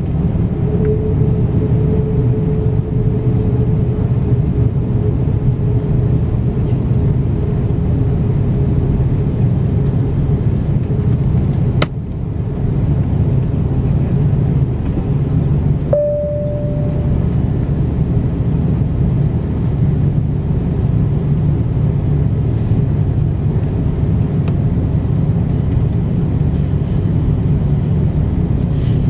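Cabin noise inside an Airbus A330-343 with Rolls-Royce Trent 700 engines, a steady low rumble of the engines and airframe as it rolls along the ground on the way to takeoff. A sharp click comes near the middle, and a brief steady tone a few seconds later.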